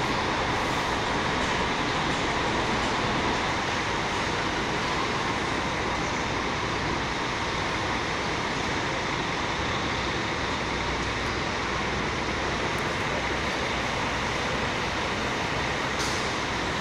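Steady noise of diesel coach engines running, with no change in level throughout.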